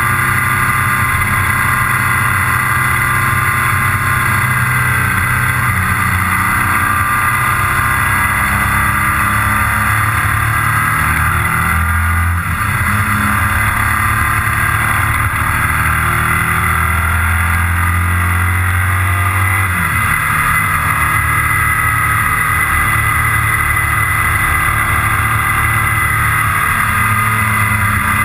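Motorcycle engine running at road speed, heard from the bike itself over steady wind and road noise. The engine note shifts up and down a couple of times, about twelve and twenty seconds in.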